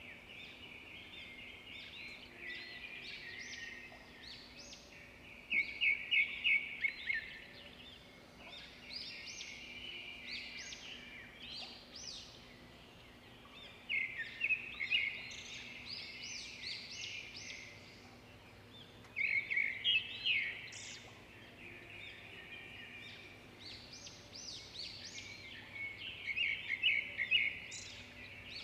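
Small songbirds singing in bursts of rapid, high chirps and trills that come back every few seconds. A faint, steady low hum runs underneath.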